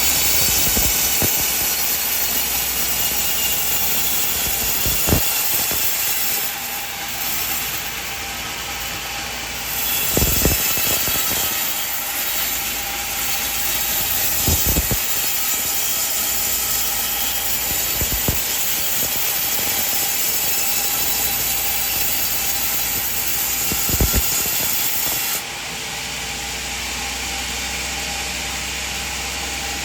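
Sawmill band saw cutting lengthwise through a coconut log: a steady hiss of the blade in the wood with a few dull knocks. The cut ends near the end, leaving the machine running quieter.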